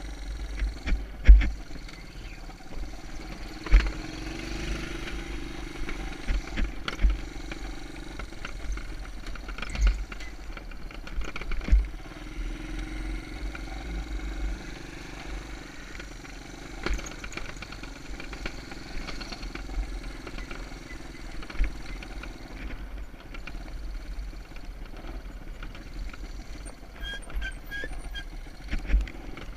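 Honda ATC 125M's small single-cylinder four-stroke engine running, with a wavering note and frequent heavy thumps and rumble on the microphone.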